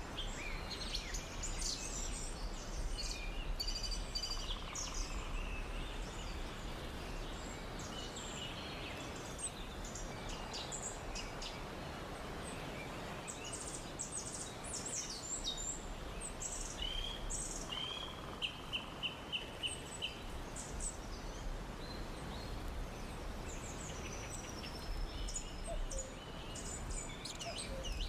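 Birds chirping and calling over a steady background hiss, with a quick run of about a dozen sharp chirps around two-thirds of the way through.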